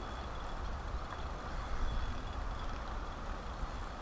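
Steady low rumble and hiss of wind buffeting the microphone, with no clear reel clicking or splashing.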